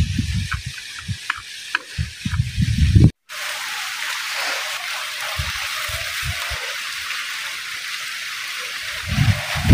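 Wind buffeting the microphone in low, gusty rumbles, then, after a break, a steady outdoor hiss with a few faint low knocks.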